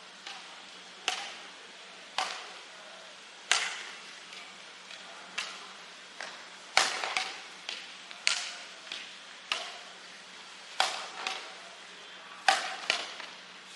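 Badminton rally: a shuttlecock struck back and forth by rackets, a sharp thwack about every second or so, with hits of the nearer player louder than the far ones.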